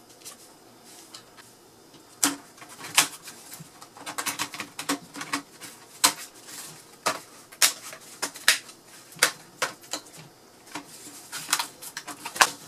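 Quick, irregular clicks and taps of an HP 15 laptop's plastic chassis and internal parts being handled and fitted together by hand, played back fast.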